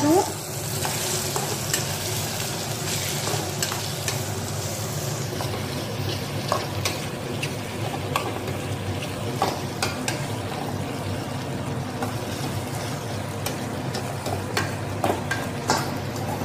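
Sliced mushrooms and vegetables sizzling as they stir-fry in a stainless steel pan, with a metal spoon scraping and clicking against the pan as it stirs them.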